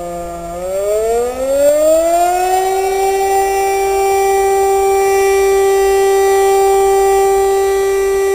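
DS977 motor siren sounding the fire-alarm signal. Its pitch sinks briefly, climbs again over the next couple of seconds as the siren spins back up, then holds a steady wail.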